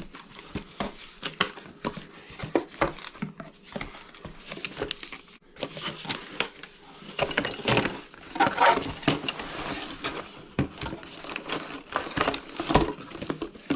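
Packaging and parts being handled: crinkling and rustling with irregular small knocks and clatters.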